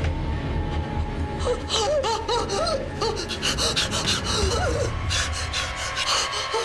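A woman gasping and whimpering in terror, with rapid breathy gasps and short wavering cries that rise and fall in pitch, over a low, dark music drone.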